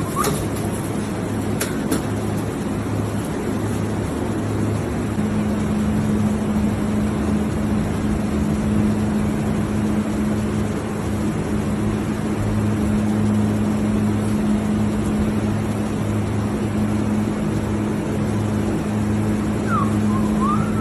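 Steady machinery hum over a constant rushing noise, with a lower pulsing drone throughout and a second, higher hum joining about five seconds in. Near the end, a few short rising peeps from the emperor penguin chick.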